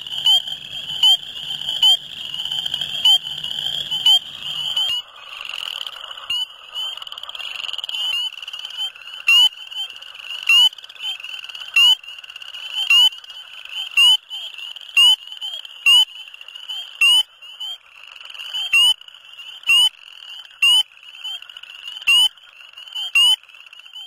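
Spring peepers calling: one close male gives loud, short, high peeps about once a second over a dense, steady chorus of other peepers.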